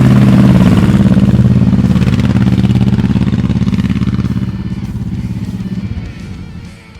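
Harley-Davidson V-Rod Muscle's V-twin engine running loud and steady with a fast, even firing pulse, then fading away over the last couple of seconds.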